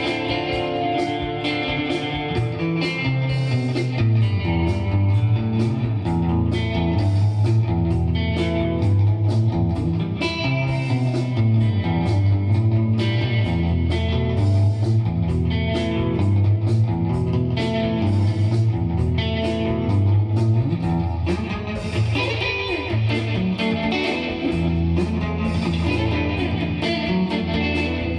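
Electric guitar playing a melodic instrumental line, over a steady beat with deep bass notes underneath.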